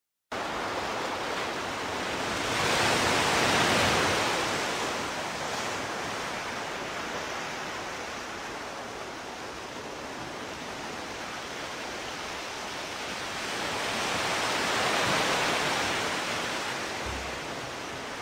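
Ocean surf: a steady rush of breaking waves, swelling louder twice, about three seconds in and again around fifteen seconds.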